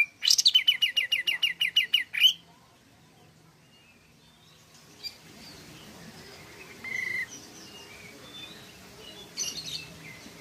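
Olive-winged bulbul (kapas tembak) singing a fast, loud run of repeated sharp notes, about seven a second, for roughly two seconds, then only a few short, fainter calls.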